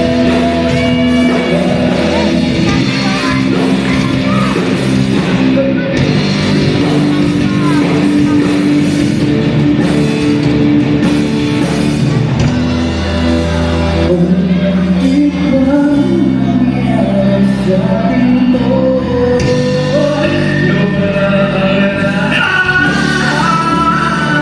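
Live rock band playing loudly through a PA, with a singer's voice over guitar, bass and drums.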